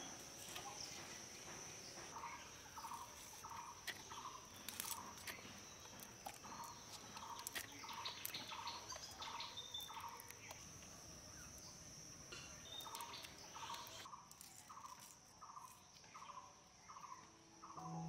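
Faint outdoor ambience: a steady high-pitched insect drone, with a bird calling in three runs of short, evenly repeated notes, about three a second, and scattered sharp clicks.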